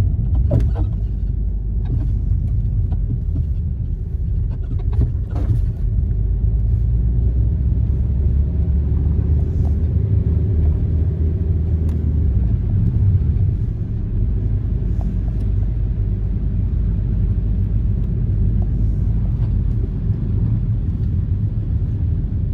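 Steady low rumble of a car driving, heard inside the cabin: engine and tyre noise on a snowy road. There are a few sharp knocks near the start and again about five seconds in.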